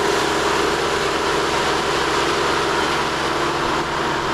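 A boat's two motors running steadily while under way, a constant hum under a steady rushing noise.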